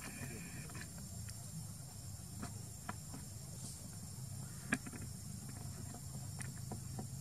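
Steady high-pitched drone of forest insects, with a lower buzzing tone in the first second. Scattered light clicks sound over it, the sharpest about five seconds in.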